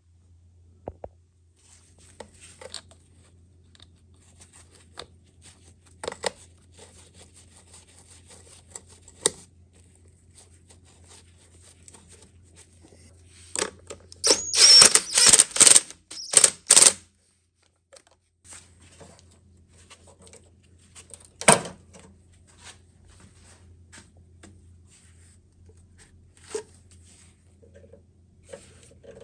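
Ratchet wrench clicking rapidly for a few seconds about halfway through, tightening a bolt that holds a plastic charcoal canister bracket to the inner fender. Scattered light clicks and knocks of parts and tools being handled come before and after.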